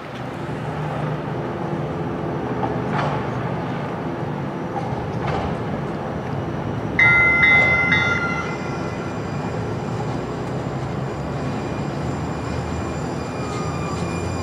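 Atlanta Streetcar (Siemens S70 light-rail tram) running in and slowing with a steady rumble and hum. Its ringing warning signal sounds about halfway through, and a motor whine falls in pitch near the end as it brakes towards the stop.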